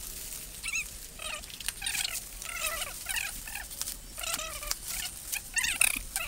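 Plastic packing wrap squeaking and crackling as it is torn and pulled off a spoked wheel rim, in short squeals that bend in pitch, about two a second, with sharp crackles between.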